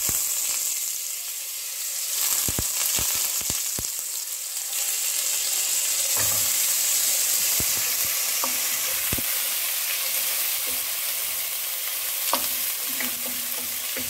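Soaked rice sizzling as it fries in hot ghee and oil in a deep frying pan, stirred with a wooden spatula that knocks against the pan a dozen or so times.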